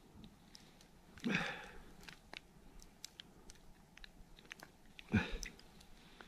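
Faint crunching and rustling of snow and clothing as a person shifts while crouched over an ice hole. There are two short, louder crunches, about a second in and just after five seconds in, with light clicks between them.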